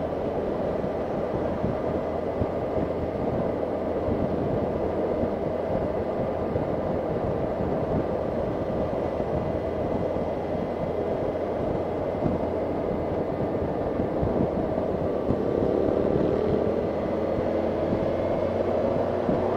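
Motorcycle engine running and wind rushing past, heard from on the bike while riding at about 40 mph. The engine note rises in the last few seconds as the bike speeds up.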